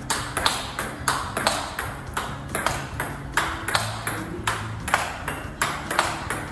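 Table tennis rally: a celluloid-type ball is struck back and forth with rubber-faced bats and bounces on the table. It makes sharp, regular clicks about twice a second.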